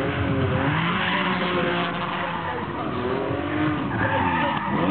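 Sports car engine revving up and down while its rear tyres skid and scrub on tarmac as it spins donuts.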